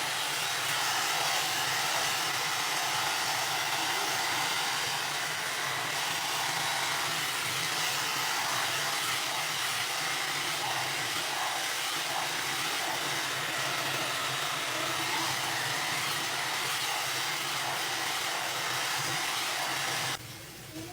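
A Beauty Creations One Step Styler hot-air brush dryer blowing steadily, switched off suddenly near the end.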